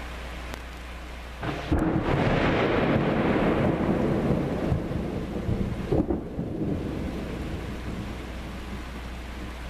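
A thunder clap with a sharp crack about two seconds in. It breaks into a loud rumble with a second crack around six seconds, then rolls away. Steady rain hisses throughout.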